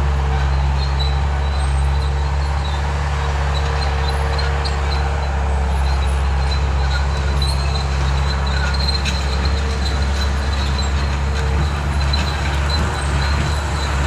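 Bobcat 873 skid steer's diesel engine running steadily while it drives a 72-inch brush cutter, with a steady higher hum over it that stops about eleven and a half seconds in.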